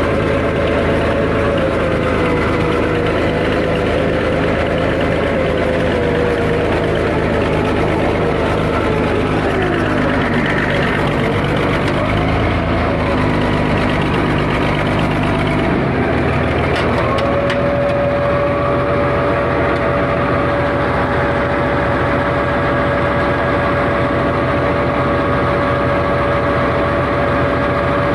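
Bulldozer's freshly overhauled diesel engine running continuously while the machine is driven, with a whine that wavers and then falls off. About halfway through, the engine note changes: the deep rumble drops and a steady whine holds for the rest.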